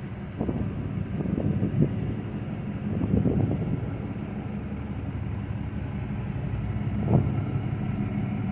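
A car engine running steadily, with a few short knocks and rattles over it.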